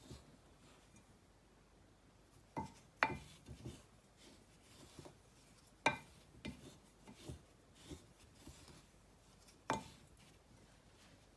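Wooden spoon stirring a dry ground spice blend in a glass measuring jug, knocking against the glass: sharp clinks about three, six and ten seconds in, with softer taps and scraping between.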